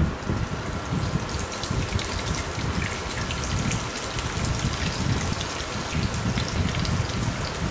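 Hot oil sizzling and crackling around bread-and-chicken balls deep-frying in a pan. A faint steady whine runs underneath.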